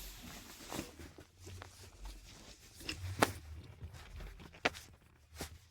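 Irregular sharp clicks and knocks of hands handling and fitting parts, the loudest a little past three seconds in, over a low steady hum.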